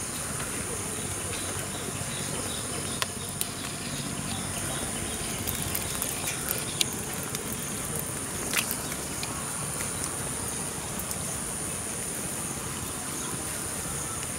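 Steady high-pitched insect chorus over a general outdoor hiss, with a few sharp clicks scattered through the middle.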